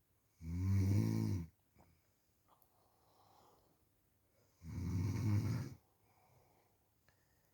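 Snoring: two loud snores, each about a second long and about four seconds apart, with faint breaths between them.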